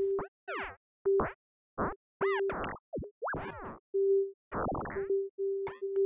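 Synthesizer notes triggered by the Bouncy Notes MIDI effect, one note each time a bouncing ball collides. They come as an irregular run of short blips, many with quickly bending, boing-like pitch, over a steady mid-pitched tone that keeps stopping and starting.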